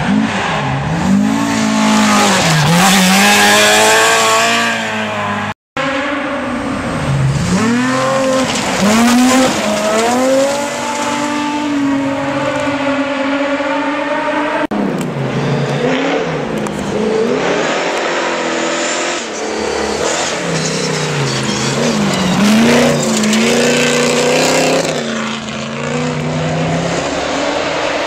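Rally cars going past hard on a gravel road, engines revving up and dropping back again and again through gear changes, with gravel and tyre noise as they pass. The passes come in about three separate pieces, broken by a brief silence about five and a half seconds in and a sudden change about fifteen seconds in.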